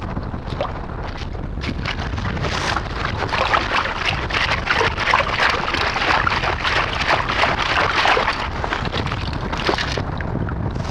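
Perforated stainless steel sand scoop digging into wet sand under shallow water: a dense crackling splash as water and sand churn and drain through its holes. This starts about two seconds in and eases near the end. Low wind rumble on the microphone runs under it.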